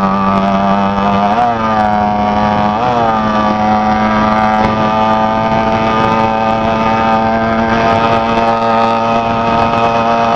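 80cc two-stroke bicycle kit engine with a bare-pipe exhaust running at steady high revs under way, with two quick throttle blips about a second and a half and three seconds in.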